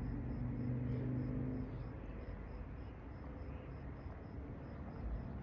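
Low, steady hum of a vehicle engine nearby that fades away about two seconds in, leaving background outdoor noise. A faint high chirp repeats about three times a second throughout.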